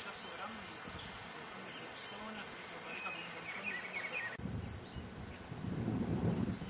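Steady, high-pitched drone of insects calling in the vegetation. About four seconds in, it cuts abruptly to a fainter drone with wind rumbling on the microphone.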